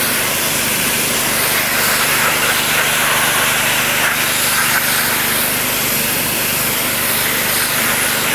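Pressure washer running, its water jet spraying from a telescopic lance: a steady, loud hiss over a low hum from the machine.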